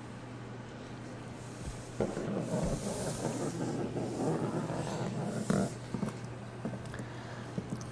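Shiba Inu puppy sniffing and snuffling close up, starting about two seconds in and easing off about two seconds before the end, with a short knock near the end of that stretch.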